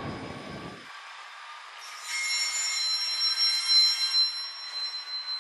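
Freight train wheels squealing as a Class 66-hauled rake of box wagons rolls slowly by. Several high-pitched squeals start about two seconds in and swell and fade, loudest near the four-second mark.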